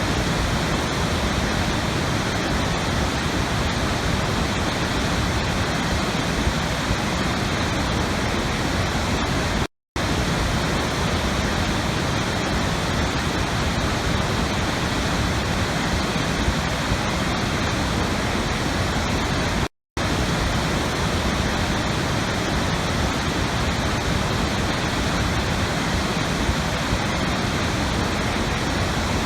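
Steady rushing water sound, an even noise like a waterfall, which drops out to silence for a split second twice, about ten seconds apart, as the recording loops.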